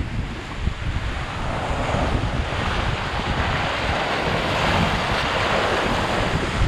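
Water rushing past the hull of a sailboat under way, with wind buffeting the microphone; the hiss of the water grows louder from about two seconds in.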